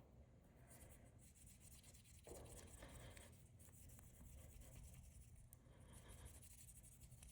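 Faint scratchy rubbing of a flattened cotton swab being worked into the crevices inside a pocketknife, between the brass liners and the blades, scrubbing out dirt.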